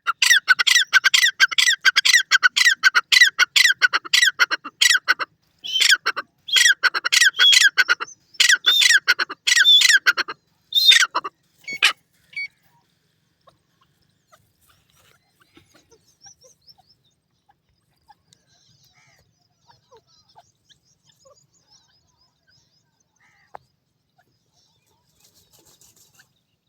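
Grey francolin calling: loud, rapid runs of harsh repeated notes in several bouts with short breaks, stopping about halfway through and leaving only faint scattered ticks.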